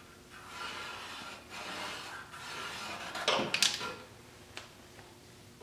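Steel sill panel being trimmed by hand along its bottom edge: a few rough scraping strokes, then a quick cluster of loud metallic knocks a little past halfway.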